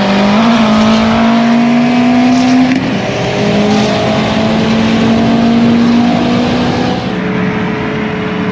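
Car engine accelerating hard: its pitch climbs, drops at a gear change about three seconds in, climbs again and drops once more near seven seconds before settling to a steady run.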